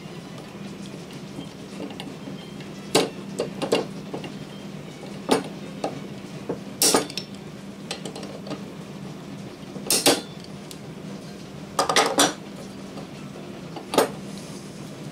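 Metal parts of a small ride-on railway truck (side frames, bolster and steel wheelsets) clinking and knocking as they are handled and fitted together with pliers: about ten separate sharp clanks, a few of them ringing briefly.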